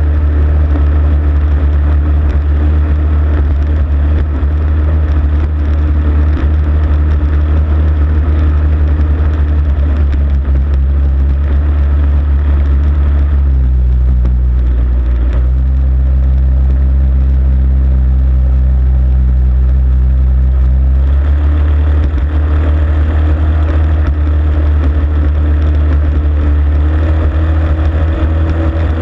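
Onboard sound of a racing hydroplane's engine running hard at racing speed, with rushing spray and wind over the hull. For several seconds past the middle the engine note changes and the rushing noise thins out, then the earlier sound returns.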